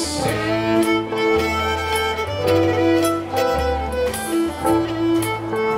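Live contra dance band playing a fiddle tune: the fiddle carries the melody in long held notes over a low bass line that moves about once a second.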